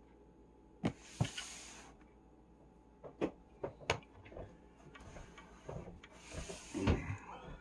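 A cardboard box handled on a tabletop: a few light knocks and stretches of rubbing and scraping as it is moved and turned.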